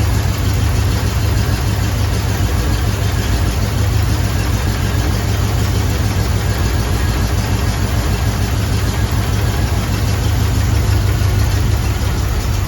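Small-block Chevrolet 283 V8 with throttle-body fuel injection idling steadily.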